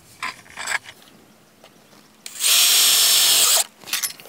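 Power drill driving a self-tapping metal screw into a joint of a sectional metal pole. It runs steadily for just over a second, starting about two seconds in and stopping sharply, after a few light handling clicks.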